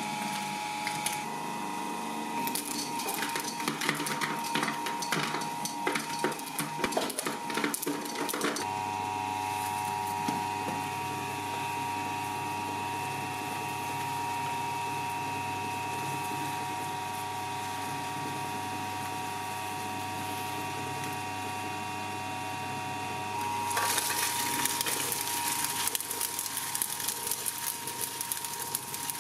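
Industrial twin-shaft shredder: for the first eight or nine seconds its steel cutters crunch and knock through the last pieces of an eggplant. The motor then runs empty with a steady hum. About 24 seconds in, the cutters start tearing into a pile of paper-cased muffins with a dense crackling.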